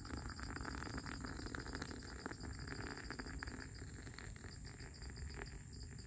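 Hot water pouring from a metal pot into an AeroPress of coffee grounds, a steady trickle that eases off about two-thirds through. A wood fire crackles in a small titanium stove, and insects trill in a fast, even pulse.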